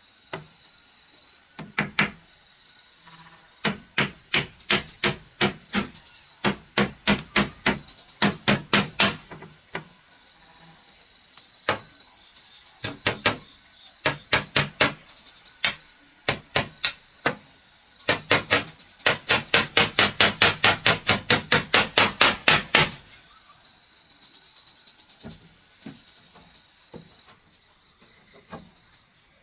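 Hammer blows on wood in short runs of several strikes, then a longer fast run of about four blows a second that stops abruptly, with insects chirring steadily behind.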